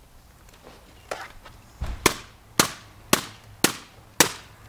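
Metal wrench striking a computer again and again: a run of sharp blows about every half second, each with a brief metallic ring, faint at first and loud from about two seconds in.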